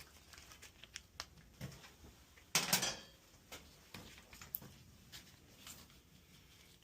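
Scattered light clicks and metal clatter of hand work with tools and parts, with one louder scrape or rustle about two and a half seconds in.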